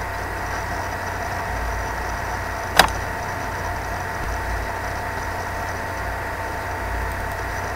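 Steady background hum and hiss of a recording setup, with one sharp mouse click nearly three seconds in.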